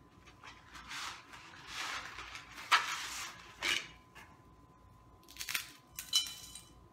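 Bundles of dry spaghetti snapped in half by hand, several separate crackling snaps of breaking strands, the sharpest a little under three seconds in, with pieces dropped into a stainless steel pan.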